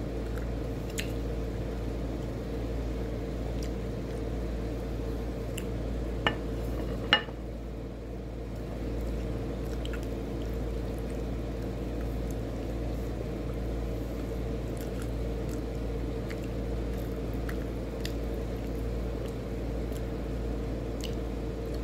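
Close-up eating sounds: chewing and fingers tearing food, over a steady low hum, with two sharp clicks about six and seven seconds in.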